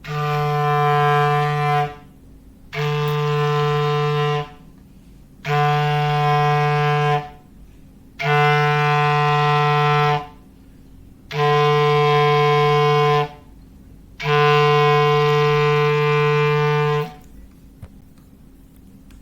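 Foghorn sound effect: a low, steady horn tone blasted six times on the same pitch, each blast about two seconds long with a short pause between, the last held a little longer.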